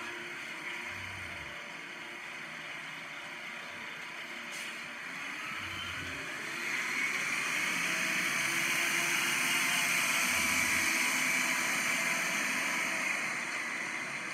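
A city bus driving past in street traffic: its engine and tyre noise swell about halfway through, peak, then ease off near the end, with a faint rising whine as it approaches.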